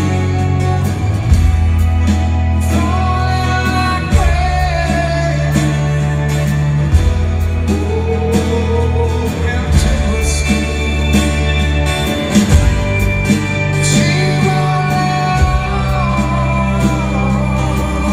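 Live rock band playing a slow song with a male lead singer, heard from the crowd in a large arena. Deep sustained bass notes change every couple of seconds under the sung melody.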